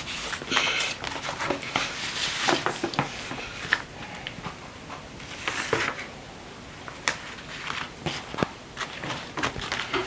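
Paper and sticker sheets being handled close by: rustling and crinkling, with small taps and clicks.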